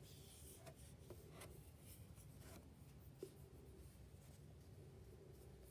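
Near silence, with faint rubbing and a few soft ticks from hands wrapping yarn around the fingers to tie a slip knot.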